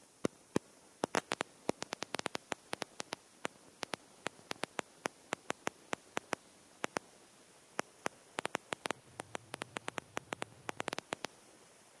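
A run of sharp, irregular clicks, several a second in uneven clusters, over a faint steady hiss.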